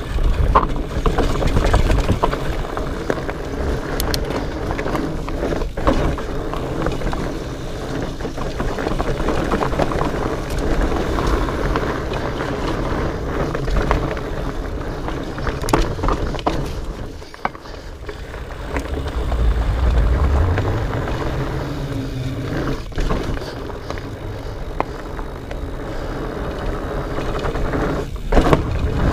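Riding noise from a Specialized Fatboy fat bike on a rocky trail: wind buffeting the microphone and the tyres rumbling over the ground, with occasional sharp knocks and rattles from the bike.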